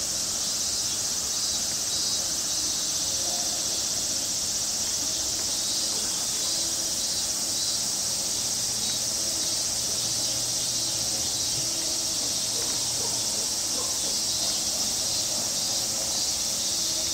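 Summer cicada chorus: a steady, high-pitched insect drone that does not let up.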